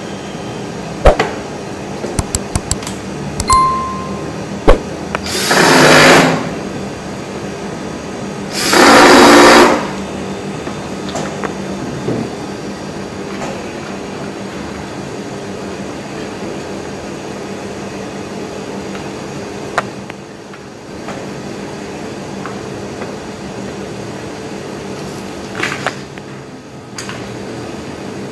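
Hands working on a compressor's wiring and electrical box: scattered clicks and knocks of parts being handled, and two loud rasping bursts about a second long, roughly four seconds apart, over a steady hum.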